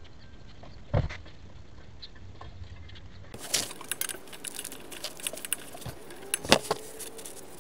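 Metal hand tools clinking and knocking against the driveshaft's rear U-joint: irregular small clicks, with a sharp knock about a second in and a louder one near the end.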